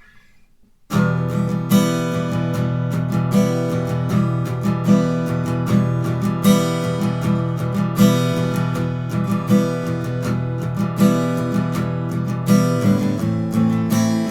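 Guitar strummed slowly in the gallop strum (бой галоп): repeating triplets of down, up, down strokes, with an accent on every third stroke. It comes in about a second in, and the chord changes near the end.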